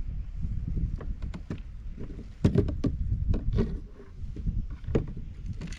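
Knocks and clicks of a fish and gear being handled in a fishing kayak, over a steady low rumble. The knocks come thickest and loudest about two and a half to three and a half seconds in.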